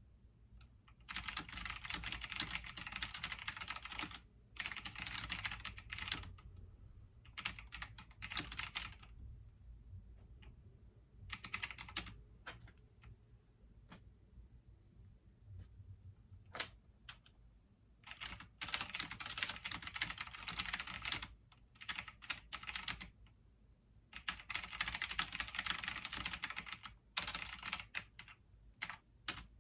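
Computer keyboard typing in runs of quick keystrokes a few seconds long, broken by short pauses, over a faint steady low hum.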